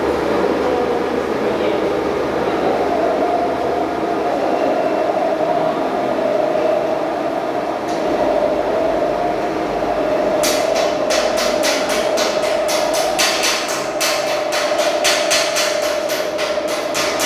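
A steady whining machine drone; about ten seconds in, regular hammer strikes on metal begin, about three a second.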